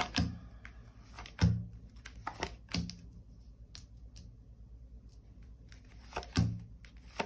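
Tarot cards being handled and laid down on a table: irregular soft thuds and clicks, the strongest about a second and a half in and again near the end, with faint card handling between.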